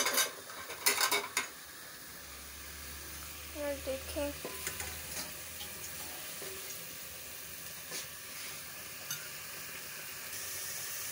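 Ground onion paste sizzling in oil in a steel pot while being stirred with a wooden spoon, its water cooking off. A few sharp knocks in the first second and a half.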